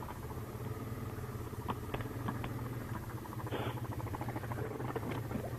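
Yamaha Grizzly ATV engine running steadily, a low even engine note, with a few faint clicks.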